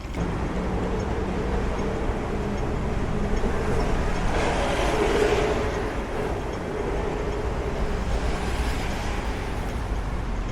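Vehicle noise with a steady hum; a louder rushing sound swells and fades about four to six seconds in.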